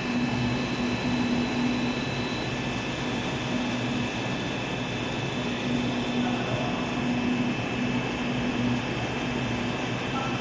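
H-beam assembly-welding-straightening machine running with a steady hum and rumble while its conveyor feeds the beam; a low tone in the hum breaks in and out every second or so.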